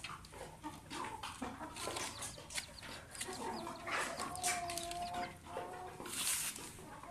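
Bantam hen clucking softly, one call held briefly in the middle, while her three-day-old chick peeps in short high calls; a brief rustle about six seconds in.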